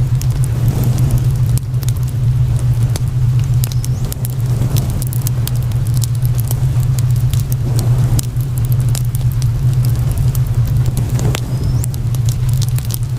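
Fire crackling, with frequent small pops and snaps scattered irregularly over a steady low hum.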